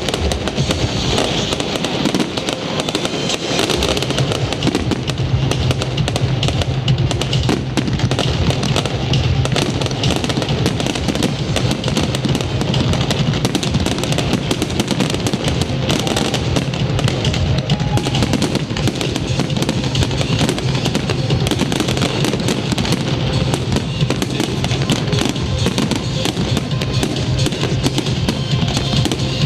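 Fireworks display: a dense, continuous run of crackles and bangs from many shells, with music playing loudly alongside.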